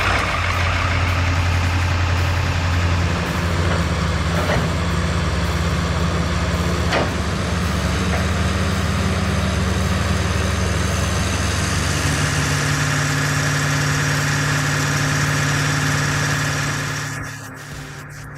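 Heavy machine's engine running steadily with a low hum. The hum shifts to a higher steady note about twelve seconds in, then drops away near the end.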